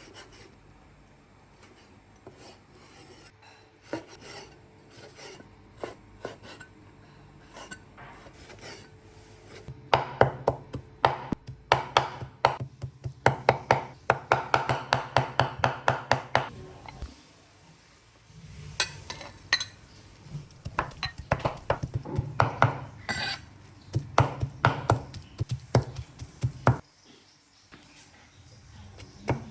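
Knife chopping on a cutting board in quick runs of several strikes a second, with two long bursts of chopping after a few quieter knocks and scrapes.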